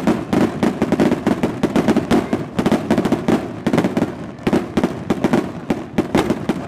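Festival fireworks: a rapid, unbroken barrage of firecracker bangs, several cracks a second, going off without pause.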